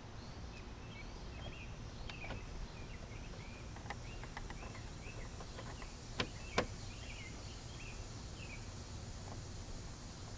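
Small birds chirping repeatedly in short curved notes over a steady low hum, with two sharp clicks about six seconds in.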